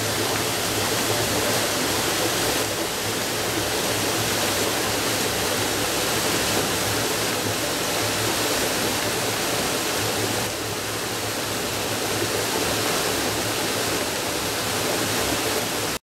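Small waterfall: stream water cascading over flat rock ledges in a steady, even rush. It breaks off abruptly at the very end.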